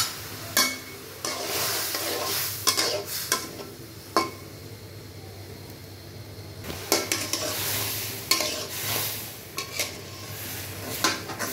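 Shrimp frying in hot oil in a wok, the sizzle swelling twice, with a spatula scraping and clicking against the pan as the shrimp are stirred.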